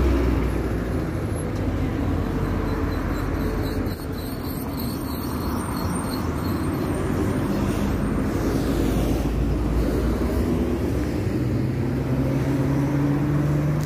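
Road traffic passing nearby: a steady rush of cars going by, with a low engine hum that rises slightly near the end.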